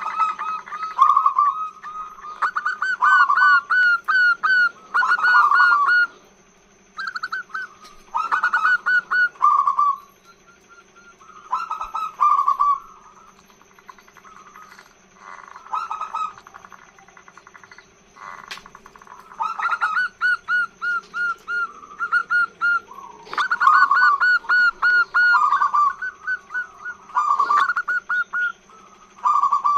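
Female zebra dove (perkutut) singing its long call: phrases of rapid bubbling coos, each lasting a second or two, repeated again and again with short pauses, sparser in the middle stretch.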